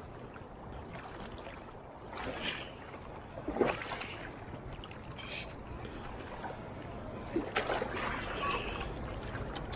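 Sea water sloshing and swishing around legs as someone wades through waist-deep surf, over a steady low rush of wind and waves.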